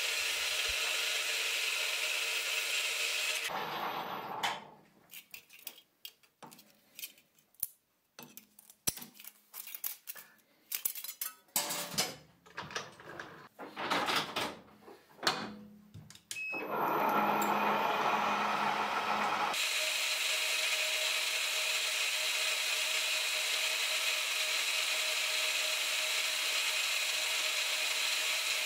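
Metal lathe running steadily with a gold-coloured sheet-metal coin spinning on it. About four seconds in it stops, and a run of separate metallic clicks and knocks follows while the coin is re-clamped in the chuck. From about seventeen seconds the lathe runs again steadily, with a bearing roller on the tool post pressed against the coin's rim to roll its edge over.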